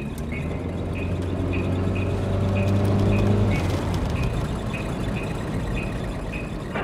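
Car engine running at a steady speed, with a light ticking about twice a second. The engine sound fades out a little over halfway through while the ticking carries on.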